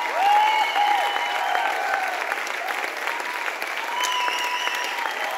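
Concert audience applauding steadily, with cheers and whoops rising above the clapping.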